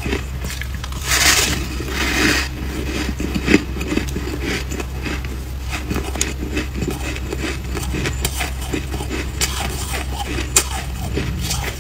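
Close-up crunching and crackling of freezer frost being bitten and chewed, with a louder rasping stretch about a second in and a steady low hum underneath.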